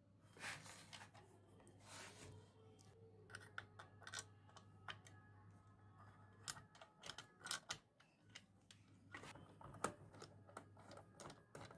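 Faint scattered clicks and light taps of small hard parts being handled, over a faint steady low hum.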